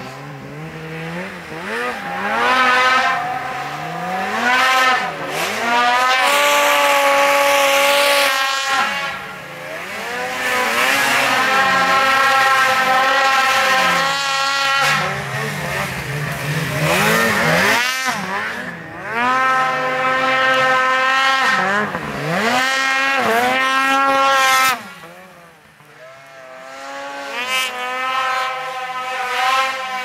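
Polaris PRO RMK snowmobiles' two-stroke engines revving hard in deep powder, the pitch climbing and falling over and over as the sleds throttle on and off and pass close by. Near the end the sound drops away suddenly, then builds again as another sled approaches.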